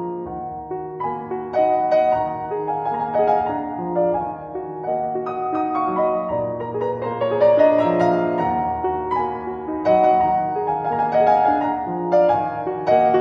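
Background piano music: single notes struck in a flowing melody over sustained low notes.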